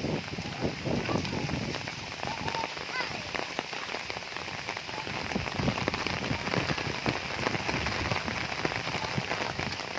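Heavy rain pattering on a roof: a dense, uneven patter of drops.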